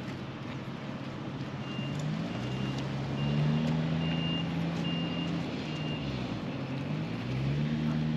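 A heavy vehicle's reversing alarm beeping about six times, evenly spaced, over the vehicle's engine, which rises in pitch, drops briefly, then picks up again near the end.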